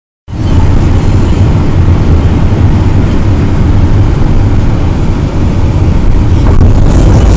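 Loud, steady low rumble of a vehicle on the road, engine and road noise together, cutting in suddenly just after the start.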